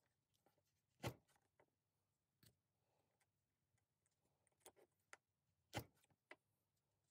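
Scattered small clicks and taps of a steel awl and silver chain links against a wooden block as the links are stretched on the awl's point, the two loudest about a second in and just before six seconds.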